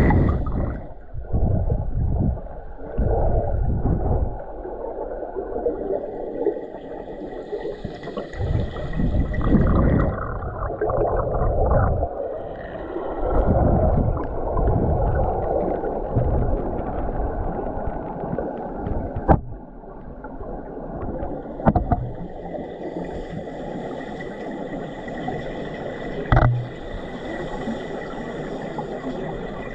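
Underwater sound picked up by a pole-held camera in its waterproof housing: muffled rumbling and swishing of water moved by the swimming diver and the pole, in irregular surges that settle in the second half. A faint steady high tone runs underneath, and a few sharp clicks come in the second half.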